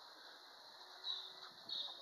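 Quiet outdoor background with two faint high chirps in the second half, about half a second apart.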